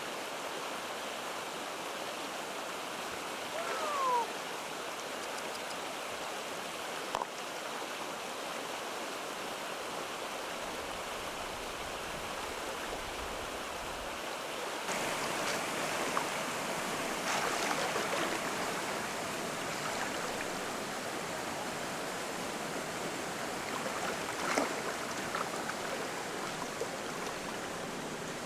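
Steady rushing of flowing water. A short falling squeak comes about four seconds in. The water grows louder about halfway through, with scattered clicks and knocks.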